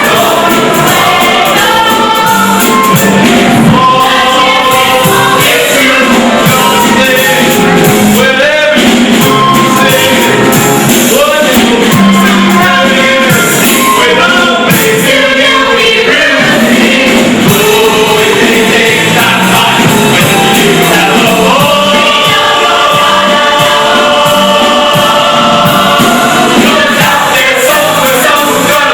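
A chorus of voices singing a musical-theatre song with accompaniment, holding long sustained notes in the last third.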